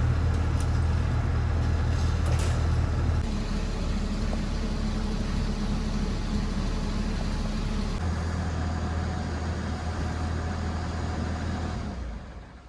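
An engine running steadily, its low hum shifting in pitch twice, then dying away near the end.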